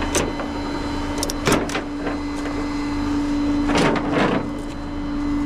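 A vehicle's engine running with a steady hum over a low rumble, with several sharp clanks and rattles, two of them close together about a second and a half in.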